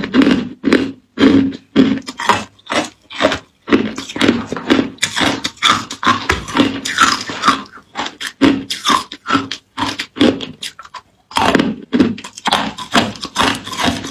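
Close-up crunching and chewing of hard ice in the mouth: rapid, irregular crunches, several a second, with a brief pause about eleven seconds in.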